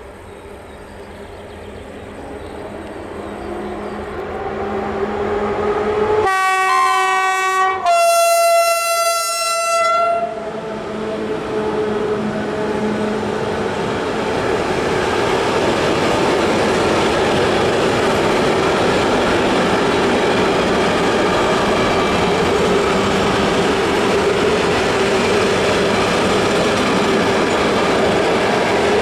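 EU07 electric locomotive hauling a container freight train, getting louder as it approaches, sounding two horn blasts about six and eight seconds in, the second higher-pitched. The container flatcars then roll past with a steady rumble and wheel clatter.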